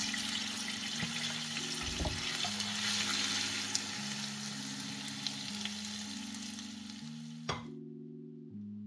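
Pirozhki frying in hot vegetable oil in a pan, a steady dense sizzle with a few light clicks. The sizzle cuts off suddenly about seven and a half seconds in, leaving soft background music.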